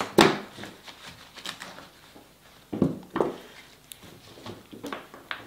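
Florist's scissors snipping flower stems and foliage being handled, heard as a handful of short, sharp snips and rustles; the loudest come near the start and about three seconds in.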